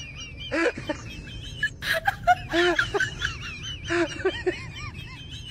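A person laughing in short, high-pitched bursts, off and on.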